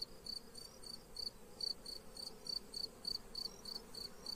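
A cricket chirping in an even rhythm, about three high chirps a second, over the faint hum of honeybees flying around their hives.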